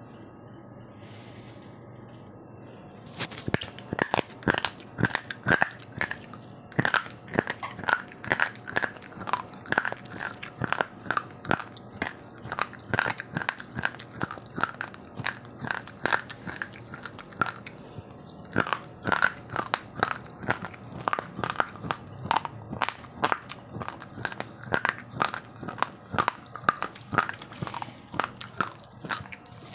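Uncooked rice grains crunched between the teeth close to the microphone: a steady run of sharp crunches, a few a second, starting about three seconds in, with a brief pause around the middle.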